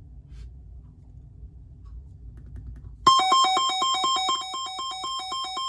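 Sangean CL-100 weather radio's alert siren sounding through its speaker: a loud electronic warble switching rapidly between a high and a lower beep, several times a second, starting suddenly about three seconds in and easing down a little in loudness. It is being played to set the siren level.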